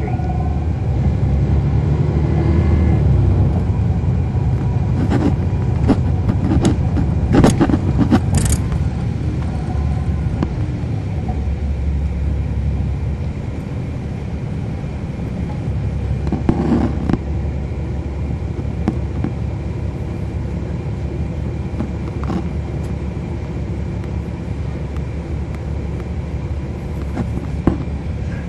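Cummins ISL9 inline-six diesel engine of a NABI 40-SFW transit bus running, heard from on board as a steady low rumble. A few sharp clicks or rattles come about five to nine seconds in and again at about seventeen seconds.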